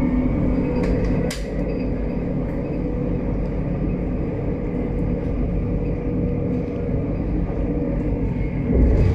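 Tram running along its line: a steady low rumble with a faint electric whine, and a few sharp clicks from the wheels on the track, the loudest about a second and a half in.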